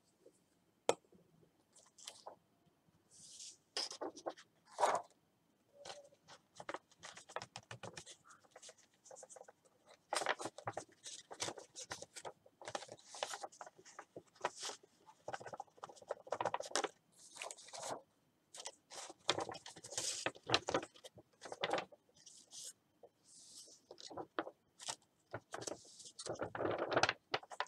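Paper and craft tools being handled on a work table: irregular scraping and rustling with small knocks.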